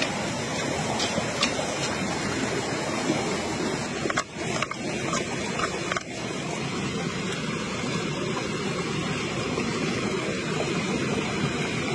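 Steady rush of running water, with a few sharp clicks about a second in and a cluster of them around the middle.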